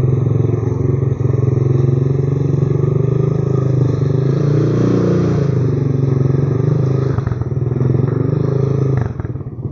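Vehicle engine running steadily with a fast, even pulsing, which the owner flags as a strange sound. Its loudness dips briefly near the end.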